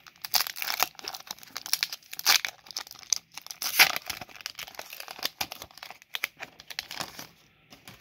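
Foil wrapper of a Pokémon trading card booster pack being torn open and crinkled by hand: a run of irregular crackling rustles that stops shortly before the end.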